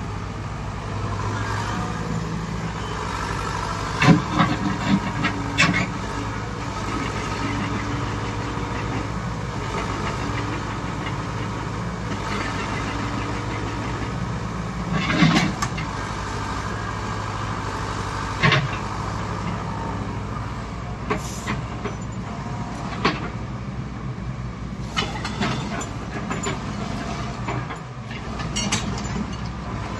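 A steady low mechanical drone, with scattered knocks and clatters, several of them close together near the end.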